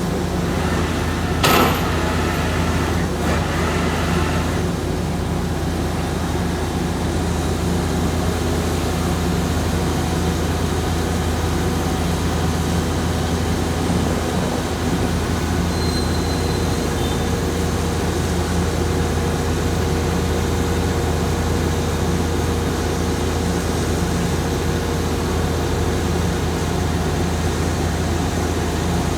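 Heavy engine of a pile-drilling rig running steadily with a low drone, and one sharp knock about a second and a half in.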